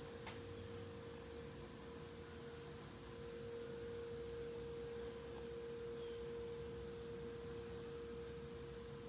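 A steady, faint single-pitched hum that grows a little stronger in the second half, with one short click just after the start.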